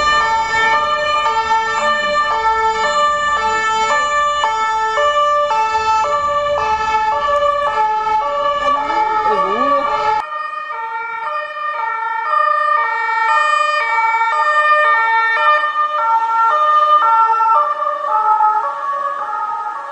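French police two-tone siren (deux-tons) alternating steadily between a lower and a higher note, about one full cycle every second and a quarter, over street traffic noise. About ten seconds in the sound cuts to another recording of the same two-tone siren without the traffic rumble underneath.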